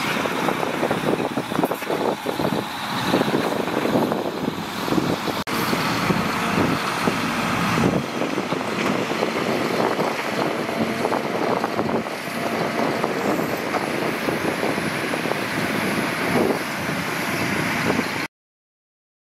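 Heavy dump trucks' diesel engines running as the trucks move and idle. The sound cuts off abruptly near the end.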